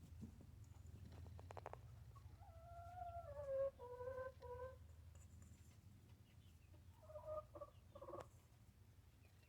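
A hen's calls: a run of short clucks sliding down in pitch a few seconds in, then a few brief clucks near the end, over a low steady hum.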